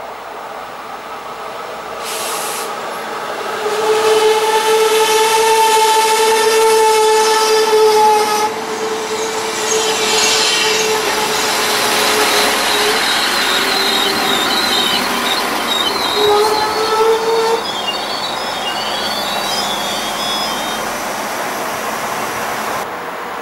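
SA134 diesel railbus running into a station platform, with a long steady high tone about four seconds in, then high warbling squeals from wheels and brakes as it slows to a stop.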